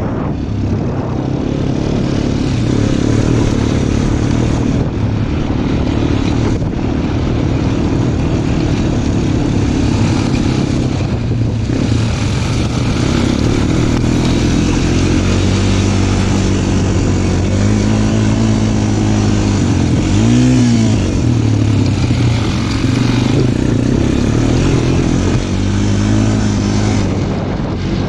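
Small off-road vehicle's engine running under load on rough ground, the revs rising and falling several times in the second half, over a steady rushing noise.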